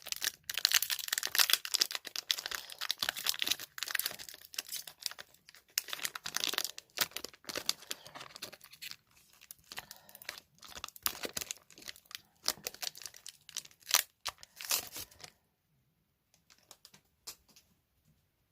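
Foil wrapper of a Pokémon trading card booster pack being torn open and crinkled by hand, a busy crackling that stops about fifteen seconds in, leaving only a few faint clicks.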